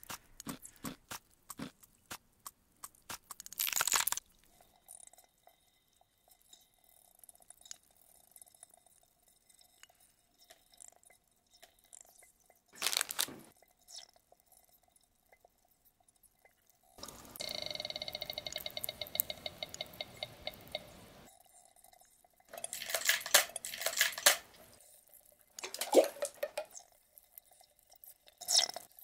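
Ice cracking and popping, played back as an ambient sound piece: scattered sharp clicks, ticks and crackles, with a faint steady tone beneath much of it. Louder clusters of crackling break out several times, and a steady hiss with a high ringing tone lasts about four seconds in the second half.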